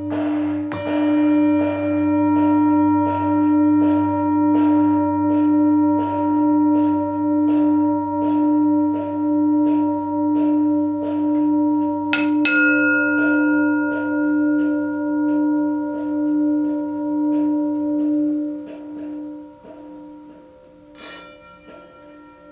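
Improvised tribal drone music: a low didgeridoo drone under a steady ringing tone that swells about once a second, with a beat of about two strokes a second. About halfway a bright bell-like strike rings out. The drone and beat stop a few seconds before the end, and another ringing strike sounds near the end.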